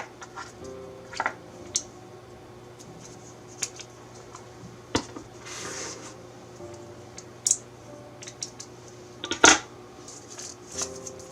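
Small hard objects being handled: scattered clicks and taps of packaging and accessories, with a brief rustle about five and a half seconds in. The sharpest knock comes about nine and a half seconds in.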